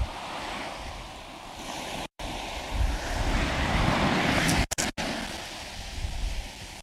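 Strong wind buffeting the microphone over surf washing onto the beach, getting louder in the middle, with the sound cutting out abruptly for a moment twice.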